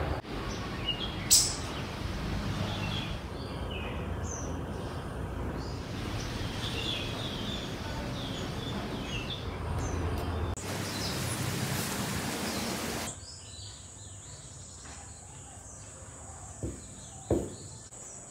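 Outdoor ambience: birds chirping over a steady background noise, with a sharp click about a second in. The background shifts abruptly a few times and drops quieter for the last few seconds, where a short knock sounds near the end.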